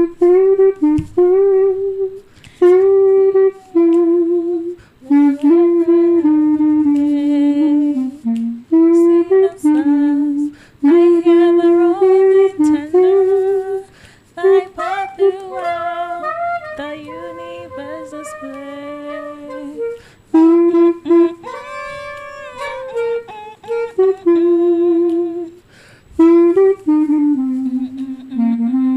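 Solo clarinet playing a slow melody one note at a time, with vibrato on the held notes and short breaks between phrases.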